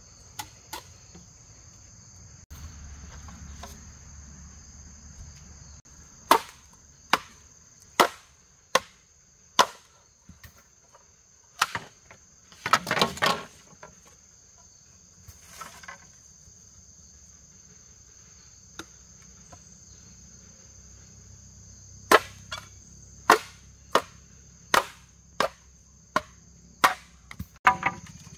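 Machete chopping bamboo: sharp single chops about a second apart, a short burst of clattering about halfway through, then a quicker run of chops near the end. Insects buzz steadily and high-pitched throughout.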